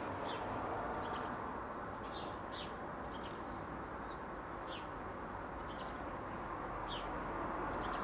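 Small songbirds giving short, high chirps that slide downward, scattered every second or so, over a steady background rush.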